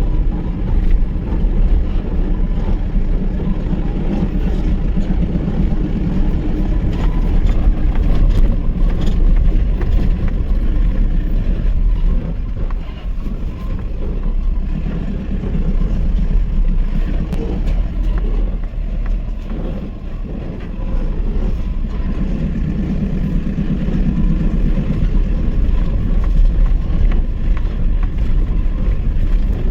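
Mahindra pickup truck's engine running under load while driving over rough ground, a steady low rumble that eases off briefly twice.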